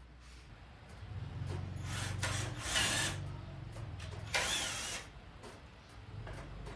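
Cordless drill-driver running as it drives screws into the plywood cabinet frame, with two louder bursts in the middle, the second with a brief squeal.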